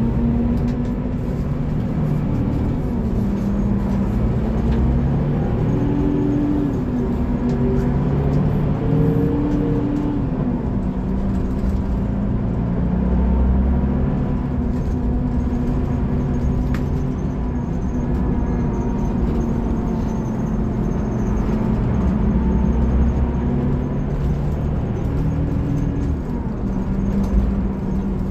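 Scania K360IB bus's DC13 inline-six diesel engine running under way. Its pitch climbs between about five and ten seconds in, then drops back, as the Opticruise automated gearbox changes up; after that it runs fairly steady.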